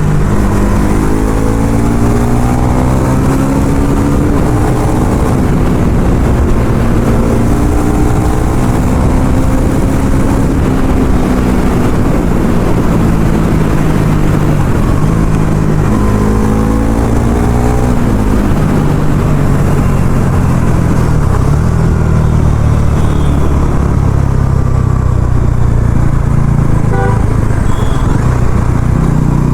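Bajaj Pulsar NS400Z's single-cylinder engine through its stock exhaust under hard acceleration. Its note climbs in pitch three times, each climb cut by a quick drop at a gear change, then holds steadier and lower for the second half.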